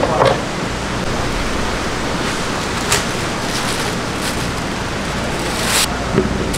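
A steady rushing noise, with two short crackles of plastic cling wrap, about three seconds apart, as it is stretched over a plate.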